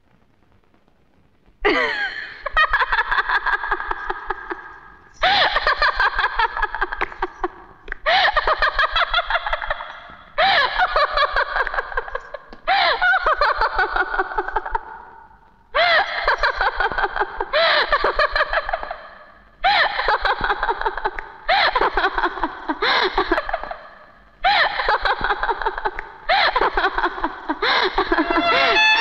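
A woman laughing hard in about a dozen loud bouts of rapid, high-pitched laughter, each a couple of seconds long and tailing off before the next, starting about two seconds in.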